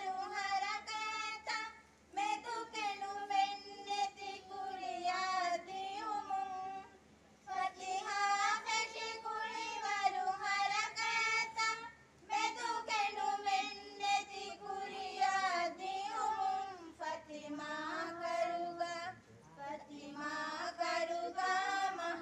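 Women's voices singing a high-pitched melody with no instruments, in phrases of about five seconds separated by short breaks.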